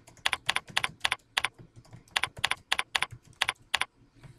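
Computer keyboard being typed on: a run of about fourteen separate keystrokes, a few a second, as a short title is typed in.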